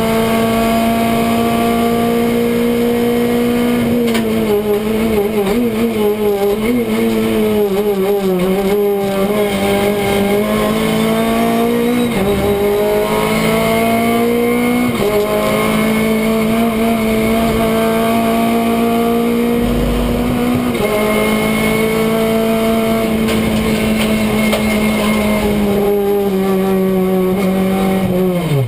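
Renault Clio Cup race car's engine heard from inside the cabin, running hard at high revs, its pitch wavering and dipping about four seconds in, then climbing and stepping at gear changes through the rest.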